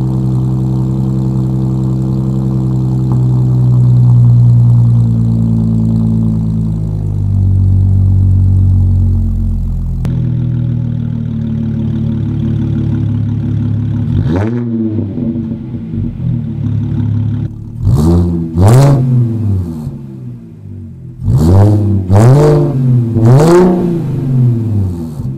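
2011 Audi S4 (B8) supercharged 3.0-litre V6 through an AWE Track exhaust with non-resonated downpipes, idling high after a cold start with the idle stepping down. It is then blipped in short revs: one about halfway through, a pair a few seconds later, and three more near the end.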